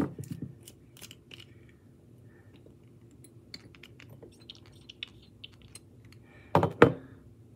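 Fingers and nails tapping and scratching on a plastic Byoma hydrating serum bottle, ASMR-style: a run of small, crisp clicks, then the dropper cap being unscrewed and lifted out. Two louder knocks come near the end.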